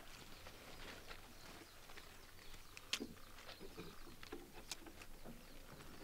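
Scattered soft rustles and snaps of harvested arame seaweed being handled as its roots are torn off by hand, with two sharper clicks about three and nearly five seconds in.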